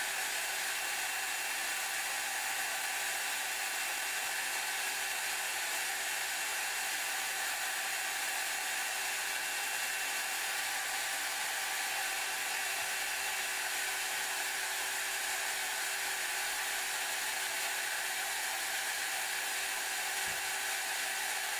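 Hair dryer blowing steadily: a continuous rush of air with a faint steady hum underneath.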